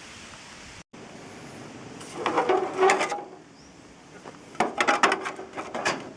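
Thin aluminium gutter parts clattering and knocking as they are handled and fitted together, in two bursts of quick clicks about two seconds in and again near the end.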